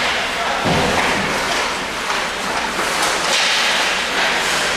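Ice hockey play close by: skates scraping on the ice, sharp knocks of sticks and puck and thuds against the boards, with indistinct shouts from players.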